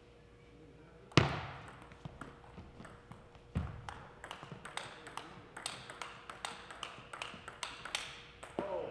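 Table tennis rally: the ball clicking off the rackets and the table in a run of sharp taps that comes faster as the rally goes on, with a loud thump about a second in and another about three and a half seconds in. A short wavering pitched sound comes near the end.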